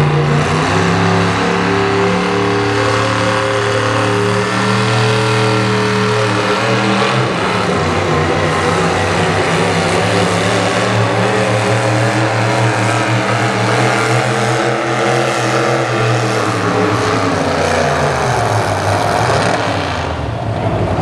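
V-8 engine of an International pulling tractor running at high revs under full load as it drags a weight-transfer sled. The pitch falls over the last few seconds as the sled brings the tractor to a stop, and the engine drops back just before the end.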